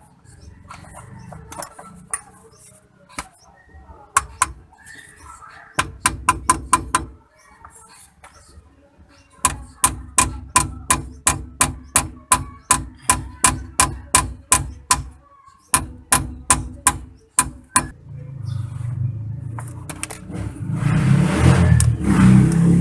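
Hand-tool work on the differential's pinion: a long run of sharp, evenly spaced metallic clicks, about three a second, with a quicker burst earlier, then a louder swelling noise near the end.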